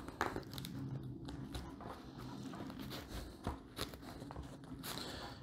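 Faint rustling of nylon straps and webbing being handled, with a few light clicks, as a strap is threaded through MOLLE webbing on a pack's hip belt.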